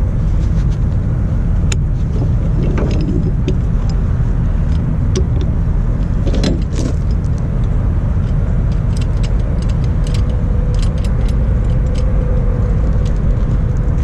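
A steady low rumble, with scattered light clicks and metallic taps as a ratchet chain binder is worked open.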